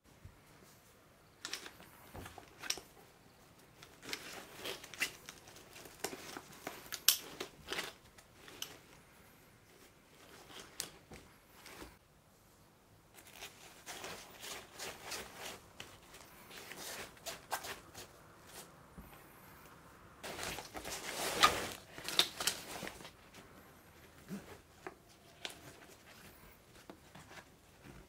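Nylon backpack fabric, webbing straps and plastic buckles being handled, with a folded foam sleeping mat being strapped on: irregular rustling and scraping with scattered sharp clicks, the loudest stretch of rustling about two-thirds through.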